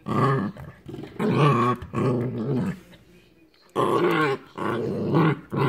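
Corgi puppy growling in repeated bouts, each sliding up and down in pitch, with a longer pause in the middle.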